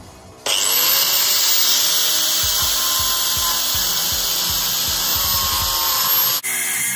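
Angle grinder starting about half a second in, its whine rising as it spins up, then cutting through a metal pipe with a steady, loud grinding noise.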